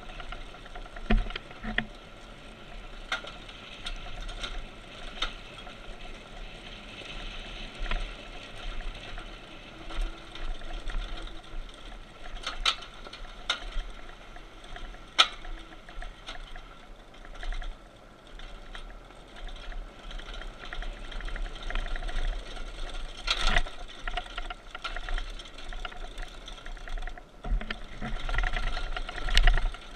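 Minibike coasting downhill with its engine dead and chain removed: tyres crunching over loose gravel and the unsuspended frame rattling, with sharp knocks over bumps.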